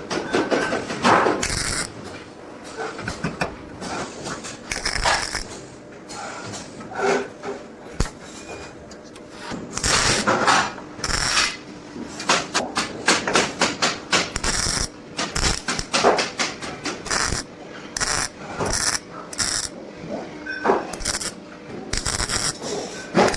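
Irregular metal knocks and clatter, with bursts of quick strikes, typical of sheet-metal workshop work on a steel trunk.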